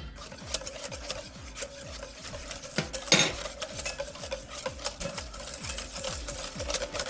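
Wire whisk beating egg-yolk hollandaise in a stainless steel bowl: a rapid run of clicks and scrapes as the wires hit and drag along the metal, with one louder knock about three seconds in. The sauce is being emulsified with clarified butter and is thickening.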